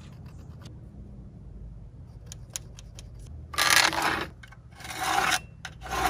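Three short scraping strokes of a marker being drawn across the rough sawn end grain of a log, marking board layout lines, with a few faint clicks before them.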